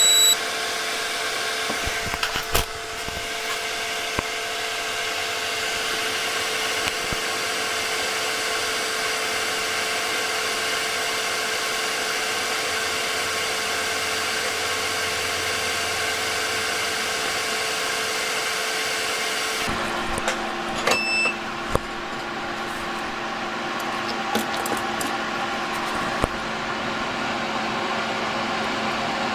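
Hot-air rework station switched on with a short beep, its blower then running steadily with a humming whine. About 20 s in it beeps again and the hum drops to a lower pitch, as when the setting is changed.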